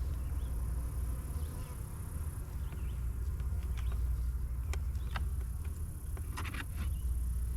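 Honeybees buzzing around an opened hive over a steady low rumble, with a few short clicks and knocks from the hive boxes being handled in the second half.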